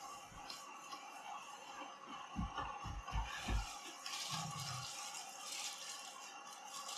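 Packaging being handled inside a cardboard box: a few soft thumps about two and a half to three and a half seconds in, then plastic wrapping crinkling from about four seconds on as a wrapped part is lifted out.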